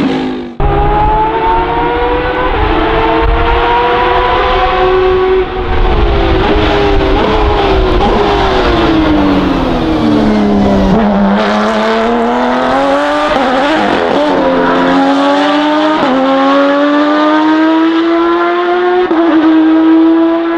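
Porsche 991.2 RSR race car's mid-mounted 4.0-litre flat-six with an open exhaust, running hard. Its pitch falls steeply as it passes about halfway through. It then climbs again as the car pulls away, with a sharp break in pitch at each upshift, twice near the end.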